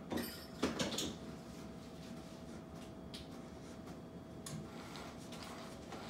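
Electronic cat toy running under its fabric cover: a faint steady motor hum, with a few sharp clicks and knocks in the first second.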